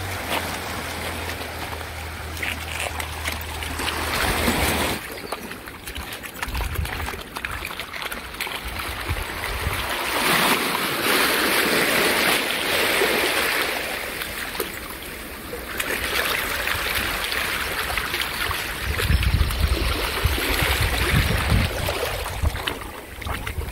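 Small sea waves washing and foaming over a pebble shore, with the splashing of a dog wading through the shallow water; the water noise swells for a few seconds near the middle.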